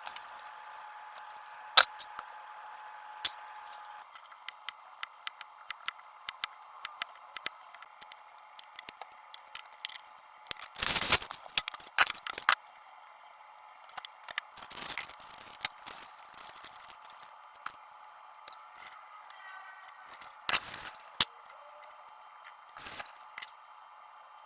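Scattered clicks and taps of small objects being handled, with a few short scraping or rustling bursts, the loudest about eleven seconds in, over a faint steady hum.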